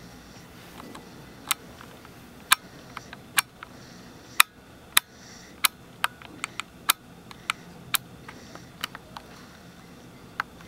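A sleeper's light snoring, soft breaths through the nose every few seconds. Over it come many sharp, irregular clicks, which are the loudest sounds.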